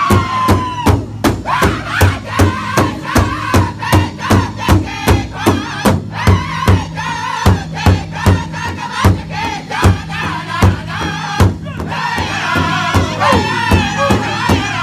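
Powwow drum group singing in high voices over one large hide-covered drum, several men striking it together in a steady beat of about two and a half strokes a second. Near the end the drumbeat drops away for a couple of seconds while the singing carries on, then picks up again.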